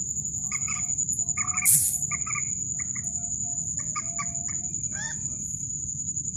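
Mandar sawah, a rail, calling: runs of short, clucking notes repeated in quick groups. A steady high insect trill runs underneath.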